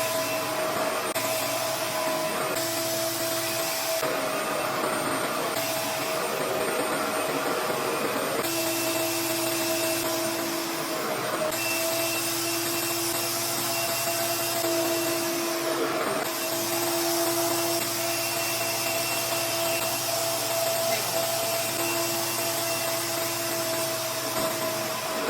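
Revair reverse-air hair dryer running: a steady, vacuum-like suction motor with a constant hum, and a second, lower hum that comes and goes several times.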